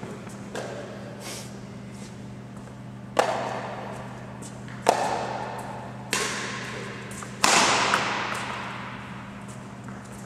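Badminton rackets striking a shuttlecock in a rally: about five sharp hits, the first about three seconds in and the last two close together, each ringing on in the echo of a large sports hall.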